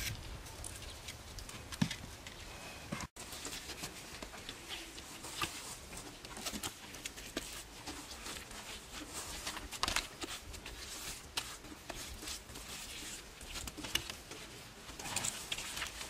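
Stones knocking and scraping as they are handled and set onto a stone-and-mud waterfall wall by hand, with scattered sharp clacks among softer scuffing.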